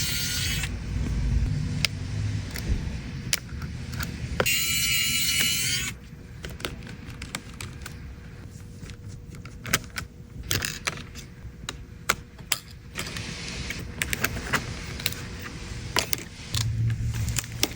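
Irregular small clicks and taps of tools and parts on a MacBook being taken apart and repaired.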